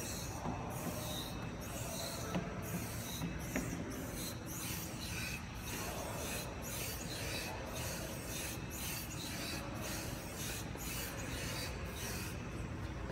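SURGE 360 trainer's hydraulic resistance cylinders hissing and rubbing with each push and pull of its poles, in an even rhythm of about two strokes a second.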